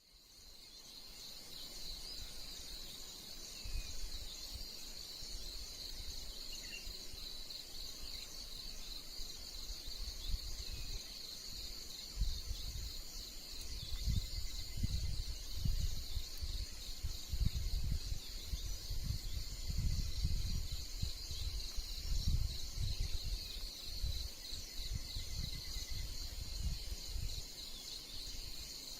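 Forest insect chorus: a steady, high, finely pulsing buzz that does not let up. Irregular low rumbles of wind buffeting the microphone come and go over it, strongest in the middle.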